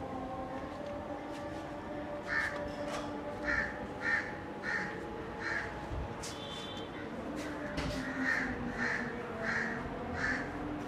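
A crow cawing repeatedly in two runs of about five caws each, with a short pause between, over a steady low hum.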